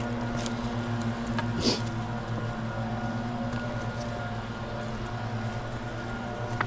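A steady motor drone holding one low pitch, with a short scuff about a second and a half in.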